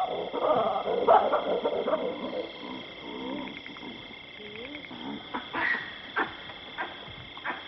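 Chacma baboons giving their barking alarm calls, raised at lions close by. Loud calls in the first couple of seconds, then a run of short, sharp barks about a second apart, over a steady high drone.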